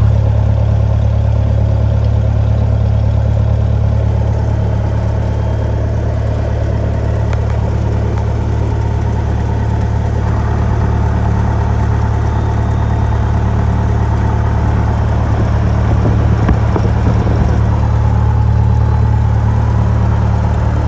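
Cessna F152's four-cylinder Lycoming piston engine and propeller running steadily at low power during taxi, a steady low drone heard inside the cabin.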